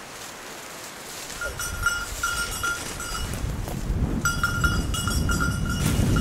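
A hunting dog's collar bell jingling in short, repeated rings as the pointer moves through cover. Under it, footsteps crash and rustle through dry undergrowth, starting about a second in and growing louder.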